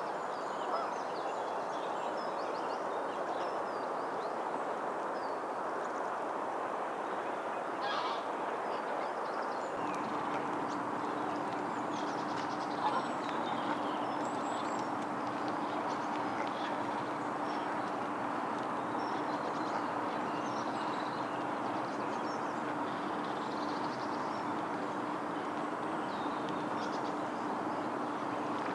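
Lakeside waterfowl ambience: geese honking, with small birds chirping over a steady background hiss. A low steady hum comes in about a third of the way through.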